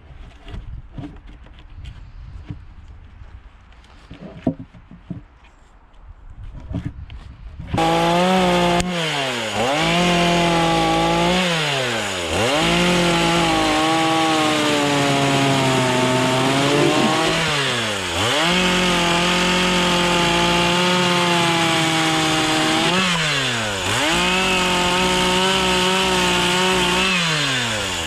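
Light knocks and handling sounds, then about eight seconds in a Stihl chainsaw comes in loud at high revs, cutting into timber. Its pitch dips sharply and recovers every few seconds as it works through the wood.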